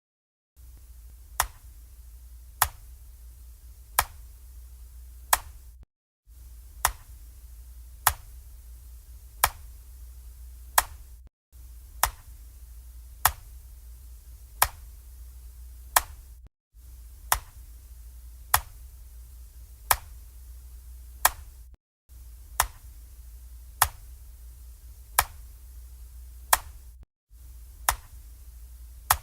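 Analog wall clock ticking steadily and slowly, a sharp tick about every second and a third. A low steady hum sits beneath and drops out briefly every five seconds or so.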